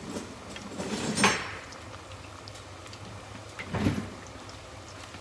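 Beer-battered chicken strips deep-frying in hot oil at about 350°F, a steady light crackle with two louder sizzling surges, one about a second in and one near four seconds.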